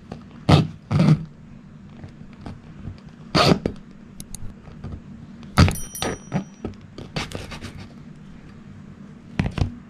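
Junior hacksaw rasping through the sealed plastic case of a fitness band, cutting it open, in short uneven strokes with a quicker run of strokes about six seconds in.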